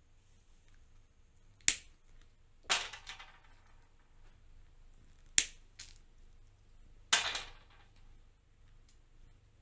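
Pistachio shells cracked open with pliers: two sharp snaps about four seconds apart, each followed about a second later by a short rattle of pistachios being handled.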